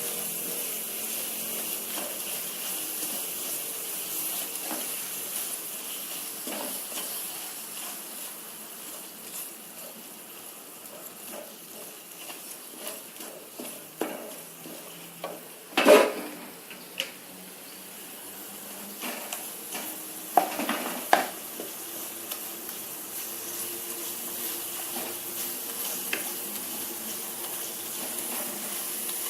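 Spice paste sizzling in a frying pan as it is sautéed and stirred, with a spatula scraping and knocking against the pan; the loudest knock comes about halfway through, with a couple more a few seconds later.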